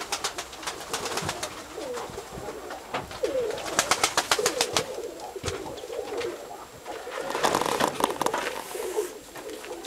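Domestic pigeons (Nikolaev breed) cooing, low coos repeating throughout, with two bursts of rapid clicking, one near the middle and one toward the end.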